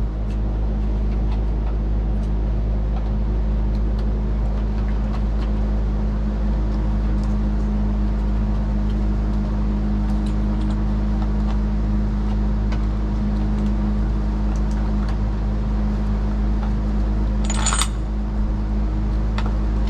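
Steady hum of a running shop fan, with a brief metallic clatter of small parts or tools about eighteen seconds in.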